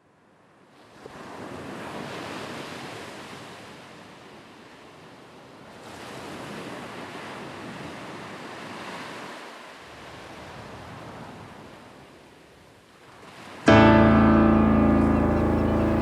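Ocean surf: waves swell and wash back twice in slow surges. About 13.5 seconds in, music cuts in suddenly and loudly with a sustained keyboard chord.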